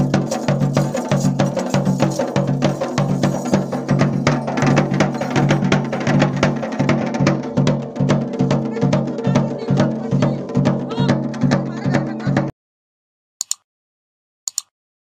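Dhol beaten with a stick in a fast, steady rhythm: jagar drumming for a deity-possession dance. The drumming cuts off suddenly near the end, followed by two short electronic clicks.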